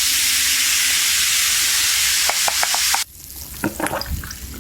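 A loud, steady hiss that cuts off suddenly about three seconds in, followed by a few light clicks and taps.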